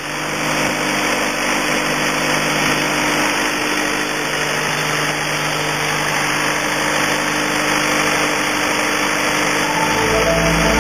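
The engine of a 1989 Barber-Greene asphalt paver idling steadily.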